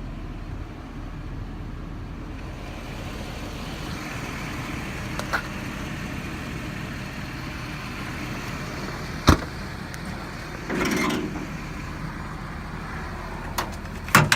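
Ford F550's 6.7 Power Stroke diesel engine idling steadily, with one sharp knock about nine seconds in and a short rustle about a second and a half later.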